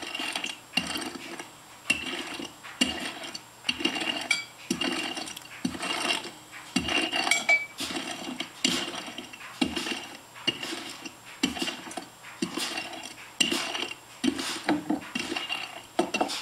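Rolling pin rolling out pie crust dough on a floured counter, in repeated back-and-forth strokes about one a second.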